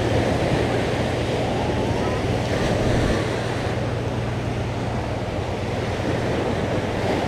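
Surf washing onto a beach, a steady rushing noise, with wind buffeting the microphone.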